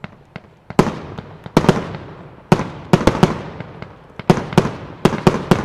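Aerial fireworks firing in quick succession: a few faint pops, then from a little under a second in an irregular series of loud, sharp bangs, several a second, each trailing off in echo.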